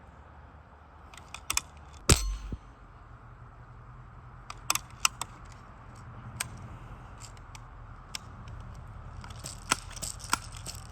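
A single shot from a Crosman 66 Powermaster pump BB rifle about two seconds in, a sharp crack with a short thud. It is followed by scattered small metallic clicks and rattles from handling the gun, more frequent near the end.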